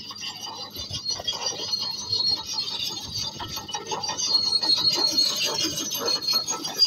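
Bulldozer at work, with a continuous high metallic squeal and rough grinding, as from its tracks.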